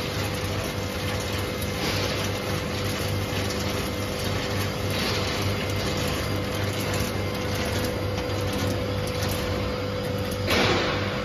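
A multihead combination weigher running with peanuts: a steady machine hum, with short rattling bursts every few seconds as nuts pour through the stainless-steel weigh hoppers. The loudest pour comes near the end.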